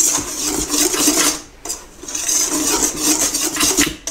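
Wire whisk scraping and rasping rapidly around a stainless steel bowl as it mixes dry flour, sugar and cocoa powder, with a brief pause about one and a half seconds in.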